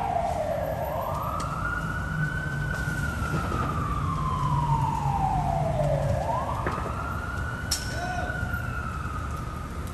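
Emergency vehicle siren wailing, its pitch rising and falling slowly in long cycles of about six seconds. Near the end a second, lower siren tone briefly joins it.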